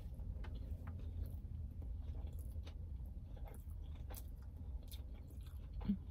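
Close-miked chewing of a sushi roll, with small wet mouth clicks scattered through. A steady low rumble sits underneath, and there is a brief louder low hum near the end.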